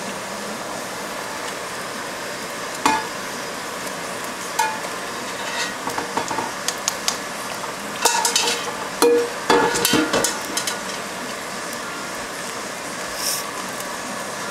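Wooden spoon stirring thick soup in a metal pot, with scattered knocks and scrapes of the spoon against the pot. The knocks are busiest from about eight to ten and a half seconds in, over a steady hiss.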